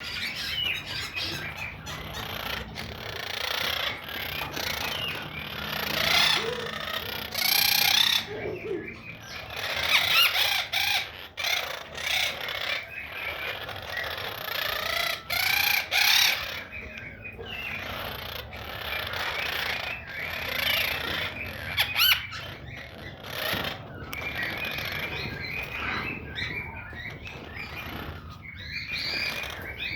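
Quaker parrot (monk parakeet) chattering and squawking continuously, a stream of short chirps broken by louder screechy squawks several times.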